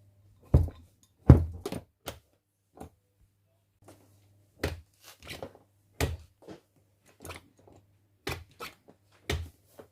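Door being worked: a series of about a dozen sharp knocks, thuds and clicks at irregular intervals, the loudest about a second in.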